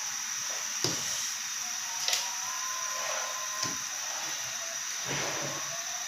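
A few light knocks and clatters of cookware being handled, about four in all, over a steady hiss with a faint high whine.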